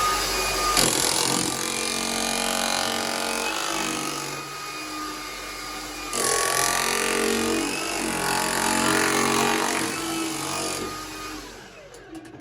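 Hilti TE-700 AVR electric demolition hammer chiselling into rock. It hammers steadily, eases off for a moment about halfway through, picks up again, then winds down and stops near the end.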